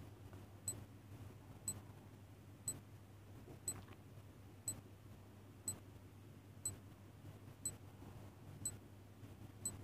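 Countdown timer sound effect ticking: ten short, faint, high clicks, one each second, like a clock's tick.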